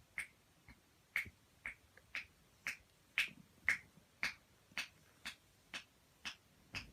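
A steady series of short, sharp clicks, about two a second.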